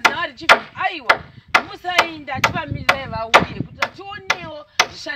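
Steady hammering, about two sharp strikes a second, typical of nailing timbers during roof construction.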